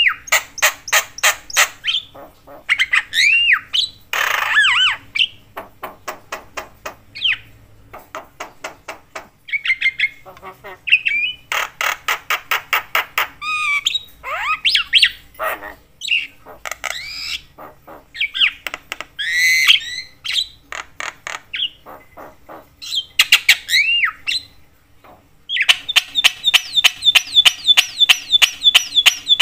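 Javan myna singing a long, varied, chattering song. It mixes rapid clicking rattles, harsh squawks and rising and falling whistles, and ends in a dense, fast rattle of notes near the end.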